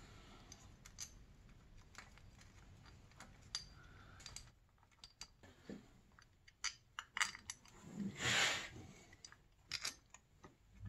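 Faint, scattered small metallic clicks and ticks as power valve parts and the cable fitting are handled and seated by hand on a snowmobile engine's cylinder, with a short louder rustle about eight seconds in.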